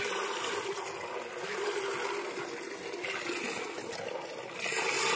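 Cow being milked by hand: milk squirting and splashing into a pail in a hissing stream, with louder surges about three seconds in and near the end.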